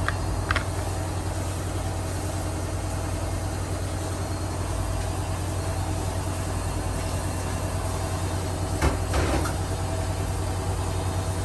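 A steady low hum runs throughout, with a short knock just after the start and a couple more about nine seconds in.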